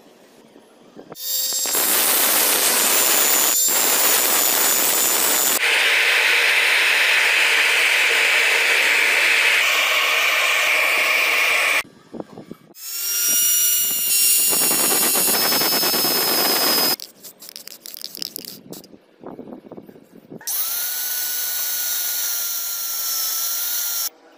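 Power tools shaping a steel file into a knife, heard in separate runs: a long stretch of loud grinding from about a second in, changing in tone near the middle, then a shorter run with a whine, a few seconds of scattered clicks and scrapes, and a last run with a steady, slightly falling whine that cuts off just before the end.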